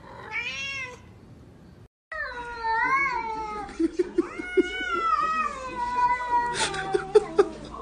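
A cat's short meow, then after a brief break a long, drawn-out meow that wavers up and down in pitch for several seconds.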